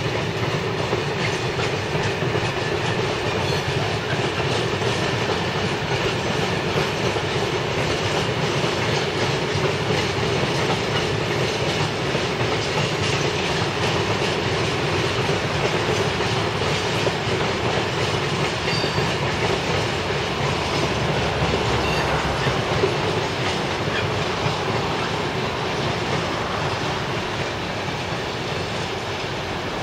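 Empty covered steel-coil wagons of a freight train rolling steadily past, their wheels running over the rails; the sound eases slightly near the end.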